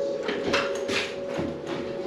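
Footsteps on a wooden porch floor: a few light knocks about every half second, over a faint steady tone that fades out.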